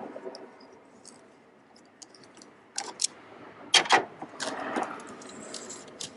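Sharp metallic clinks and rattles of small metal parts or tools being handled, in a cluster between about three and five seconds in, loudest twice near four seconds.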